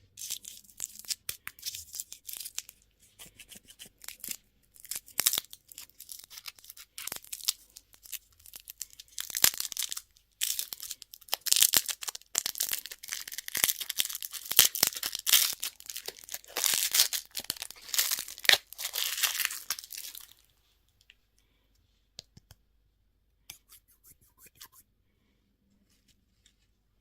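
Candy wrapper being torn open and crinkled by hand in a dense run of crackles for about 20 seconds, followed by a few light scattered clicks before it goes quiet.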